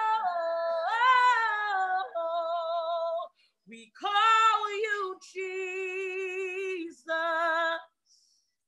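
A solo woman singing a gospel worship song unaccompanied, in several phrases of long held notes with wide vibrato and short breaths between them, heard through a Zoom video call.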